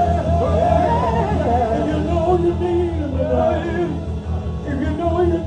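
Live gospel music: a man singing over instrumental accompaniment with a steady low bass.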